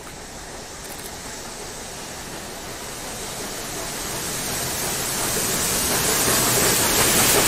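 Union Pacific Big Boy 4014, a 4-8-8-4 articulated steam locomotive, approaching: a steady rushing noise with no separate beats, growing steadily louder as it nears.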